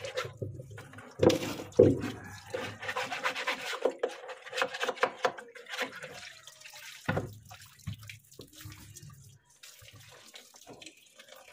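Water from a hose running into a washing machine's plastic outer tub, splashing as the tub is scrubbed out by hand with a brush. Later the dirty water pours and splashes out of the tipped tub onto the floor.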